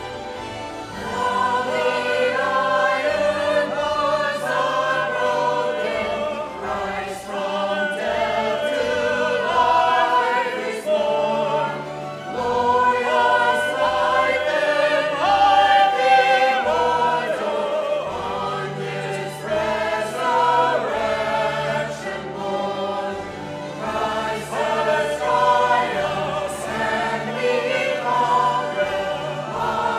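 Church choir of men's and women's voices singing together, coming in about a second in over the instrumental accompaniment.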